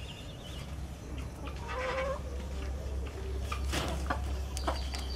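Chickens: a hen gives a short squawking call about two seconds in, with scattered clucks and a brief scuffling rustle near four seconds, as the rooster mates and climbs off her. A steady low rumble runs underneath.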